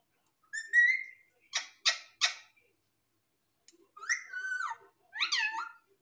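Indian ringneck parakeet calling. It gives a short whistled note about half a second in, then three short harsh squawks in quick succession, and near the end two warbling whistled phrases that glide up and down in pitch.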